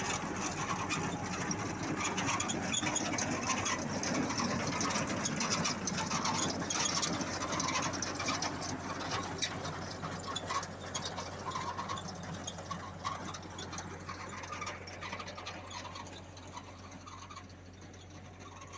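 Tractor-drawn potato digger clattering as its shaking rod grates sift soil and potatoes, over the steady running of the tractor's engine. The sound grows quieter over the last few seconds.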